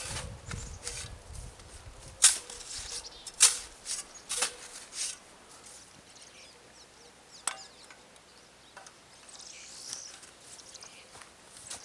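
A snow shovel biting and scraping into packed snow in several sharp crunching strokes, then footsteps crunching through snow near the end.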